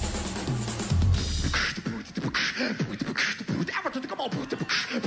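Heavy drums and bass stop about a second and a half in, and a vocalist beatboxes into a handheld microphone through the PA, with short hissing snare-like sounds at a steady beat.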